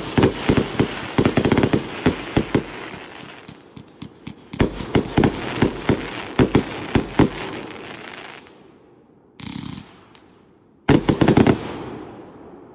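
A multi-shot consumer firework cake firing rapid volleys of shots and bursts. It pauses briefly about four seconds in, tails off near eight seconds, then fires one last short volley about eleven seconds in, which fades away.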